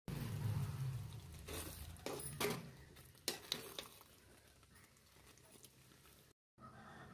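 Metal spoon stirring thick potato and brinjal gravy curry in a metal pan, with a few sharp scrapes and knocks against the pan about one and a half to three and a half seconds in, over a low steady hum.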